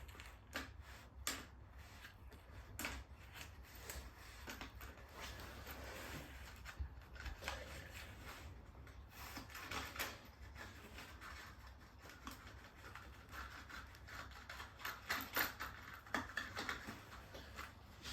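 Faint handling noises: scattered light clicks, taps and rubbing, a little busier near the end.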